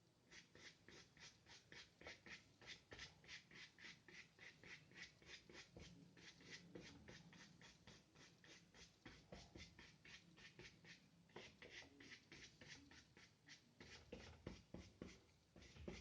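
A nearly dry wide paintbrush with a little white gouache brushed across paper in quick short strokes, about three or four a second, with a couple of brief pauses: dry-brushing fur.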